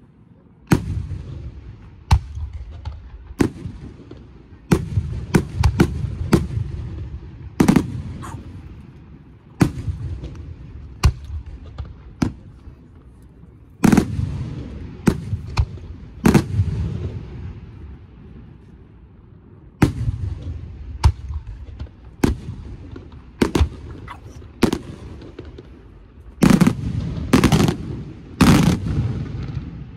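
Aerial firework shells bursting in a display: sharp bangs at irregular intervals, sometimes several in quick succession, each followed by a rumbling echo. A dense run of the loudest bangs comes near the end.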